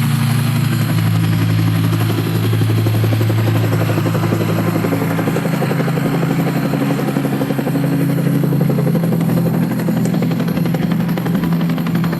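Helicopter in flight, its rotor blades chopping rapidly over a steady low engine drone. A little past halfway the low drone shifts in pitch.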